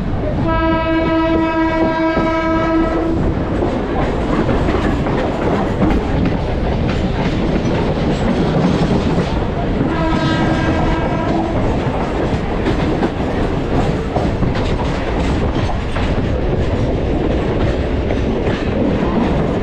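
Mumbai suburban electric local trains running and passing each other on adjacent tracks, with a steady rumble and wheels clattering over the rail joints, heard from the open door of a moving coach. A train horn sounds twice: a long blast about half a second in and a shorter one about ten seconds in.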